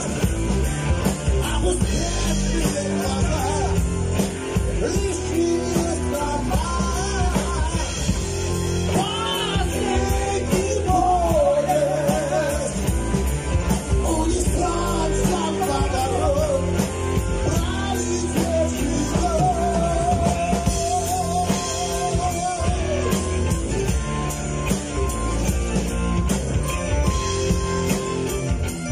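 Live rock band playing: a lead vocal sung in phrases with vibrato over electric guitar, bass guitar, keyboard and drums. The singing stops about three-quarters of the way in and the band plays on.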